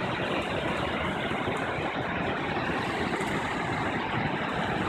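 Steady rushing of brown floodwater churning down a concrete creek channel, with a storm drain pouring into it, blended with the even hum of traffic on the nearby freeway.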